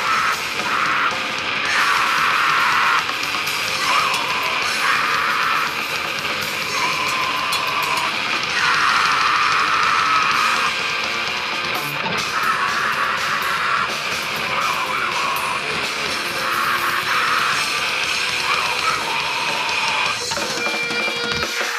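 Grindcore band playing live at full tilt: distorted electric guitar and drums with a screamed vocal. The noise is dense and unbroken, and a steady ringing tone comes in near the end.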